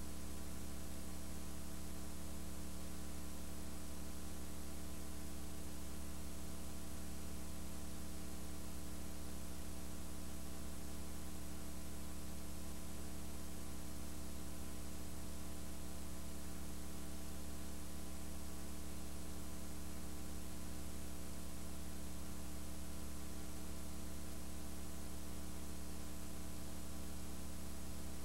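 Steady electrical mains hum with a layer of hiss, unchanging throughout, with no other sound standing out above it.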